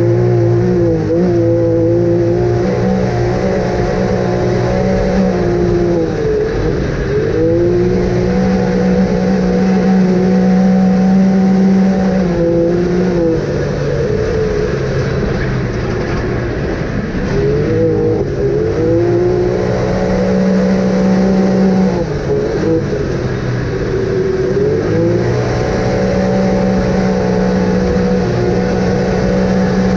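An off-road vehicle's engine driven hard, its pitch climbing, holding high for a few seconds, then dropping back, over and over.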